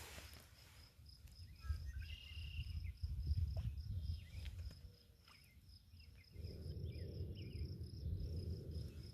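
An insect chirping in a fast, even, high-pitched pulse, with a low rumble underneath that comes and goes, loudest around the middle and again near the end.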